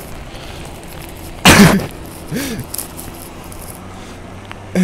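A person coughs once, short and loud, about a second and a half in, followed by a brief faint voiced sound. A low steady hum runs underneath.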